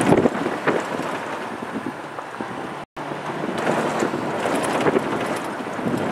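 Wind buffeting the microphone over the road noise of a moving car. The sound drops out completely for an instant about three seconds in.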